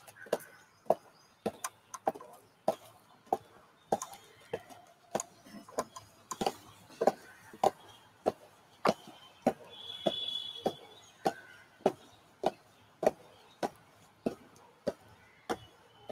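A steady beat of sharp knocks, about three every two seconds, keeping marching time for a procession.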